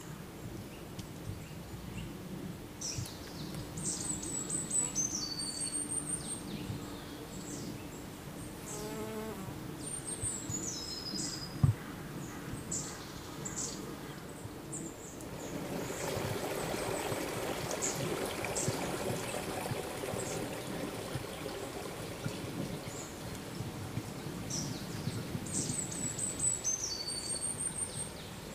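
Woodland field-recording ambience: a small bird's high chirping phrase, stepping down in pitch, repeats several times over a low background rumble. A single sharp knock comes about twelve seconds in, and about halfway through a louder even rushing hiss sets in and carries on.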